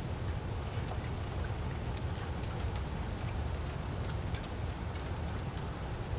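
Steady rain falling, with scattered single drops ticking, over a constant low rumble.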